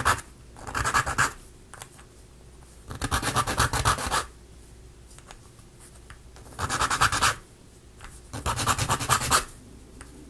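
A small flat file rasping against the teeth of a laser-cut plywood gear, in four bursts of quick back-and-forth strokes with short pauses between.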